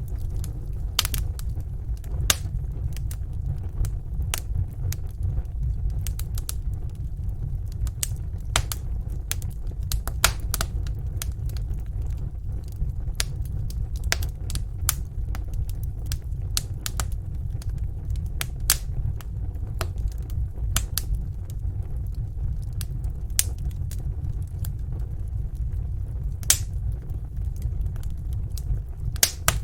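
Wood fire crackling in a fireplace: a steady low rumble of the flames under irregular sharp pops and snaps.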